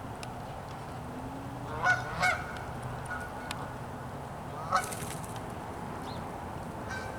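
Canada geese honking: a quick double honk about two seconds in, a single honk near five seconds, and a fainter honk near the end.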